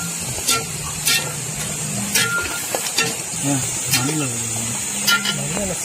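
Long steel slotted spatula stirring and scraping masala in a large aluminium pot, knocking against the metal several times, about once a second, each knock with a brief ring. A steady high hiss runs underneath.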